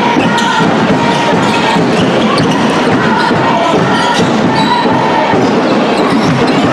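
Handball game in a sports hall: the ball bouncing on the court floor over steady crowd noise and voices, with short high squeaks from players' shoes.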